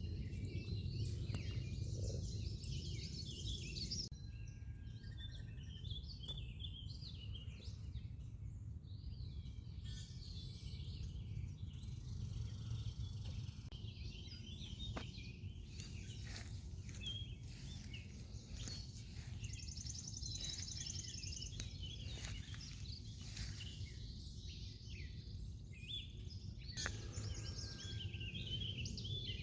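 Several songbirds chirping and trilling over a steady low rumble of outdoor background noise.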